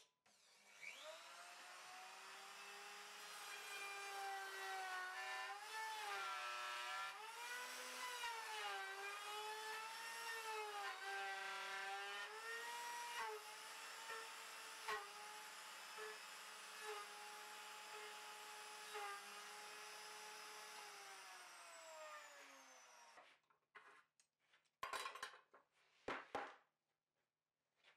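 Router with a spiral bit on a Pantorouter, cutting a tenon on the end of a pine block. The motor spins up with a rising whine, and its pitch dips again and again as the bit bites into the wood. It then runs steady and winds down with a falling pitch about 23 seconds in. Two short knocks follow near the end.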